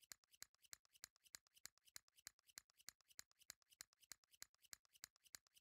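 Faint, fast, evenly spaced clicking, several clicks a second: the ticking sound effect of a flip calendar's dates changing.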